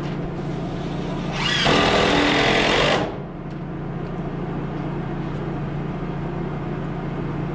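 A power drill-driver driving a screw into the door trim: one run of about a second and a half, starting about a second and a half in, its motor pitch rising as it spins up. A steady low hum goes on underneath.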